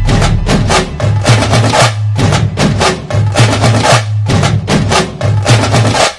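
Music with fast, busy percussion: dense drum strokes over a heavy bass line. It cuts off suddenly at the end.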